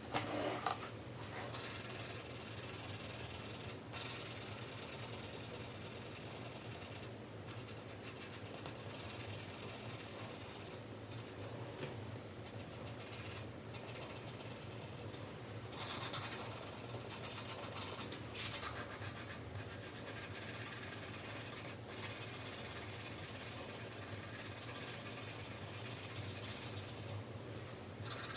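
4B graphite pencil shading on paper: a steady scratchy rubbing of back-and-forth strokes, broken now and then by brief pauses as the pencil lifts.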